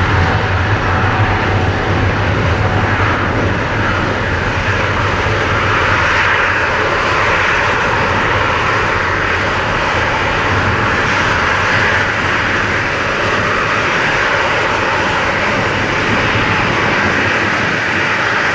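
Air Canada Boeing 777's twin GE90 turbofans running at high thrust as the jet rolls away down the runway on its takeoff run: a loud, steady jet engine noise whose deep low rumble eases off slightly as it moves away.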